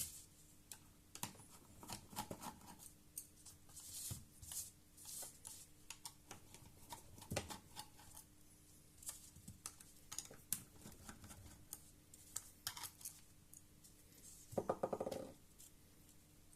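Faint scattered clicks, taps and short scrapes of small plastic and metal laptop parts being handled as the hard drive is lifted out of the laptop.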